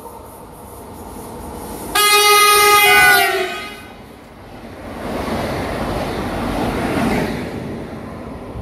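Passing train sounding its horn for about a second and a half, the pitch dropping at the end as it goes by. This is followed by the rumble of the train's wheels on the track, swelling and then fading.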